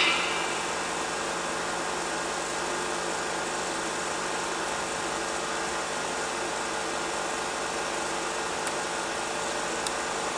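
Steady hum and hiss of a 16mm film projection running on after the last title, with blank leader going through the projector; two faint clicks near the end.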